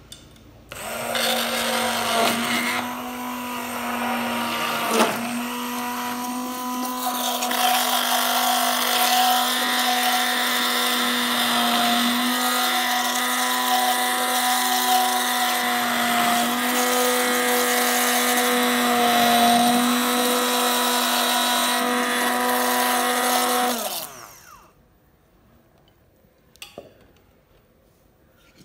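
Philips hand blender running in a pot of milk cream, churning it into butter. The motor starts about a second in, runs at a steady pitch for over twenty seconds, and winds down with a falling whine near the end.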